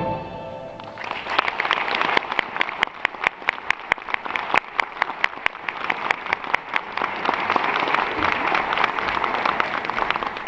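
The last chord of a string orchestra rings away, and about a second in the audience starts applauding, with a run of sharp single claps close to the microphone standing out above the general clapping.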